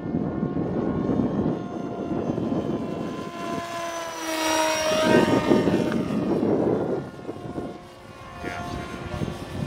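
Small electric-powered foam flying wing passing low overhead, its motor and propeller whining in a steady pitched buzz that swells to its loudest about halfway through, then drops slightly in pitch and fades as it flies away.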